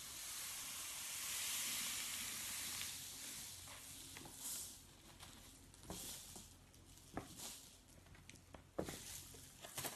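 Loose salt hissing as it slides and pours off a sheet of paper tipped to shed the excess from a glue drawing, loudest in the first three seconds and then fading. Scattered light taps and rustles of the paper follow.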